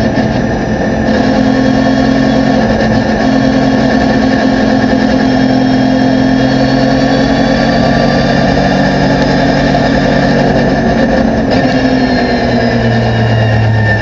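Porsche 911 GT3 R race car's flat-six engine heard from inside the cockpit, running steadily at moderate revs. Its pitch falls near the end as the car slows.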